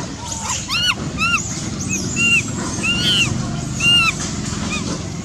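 Animal calls: a string of short, high, arching squeaks, each rising and falling in pitch, coming roughly twice a second over a steady low rumble.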